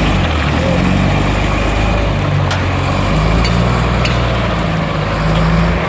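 A heavy diesel engine running loud and steady, its pitch stepping up and down as it revs, with a few faint clicks over it.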